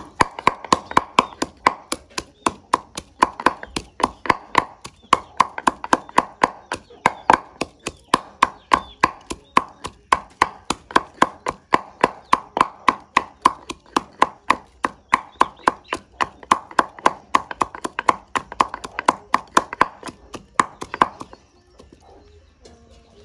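Wooden pestle pounding garlic and ginger in a carved wooden mortar: a steady run of hollow wooden knocks, about three a second. Near the end the pounding stops.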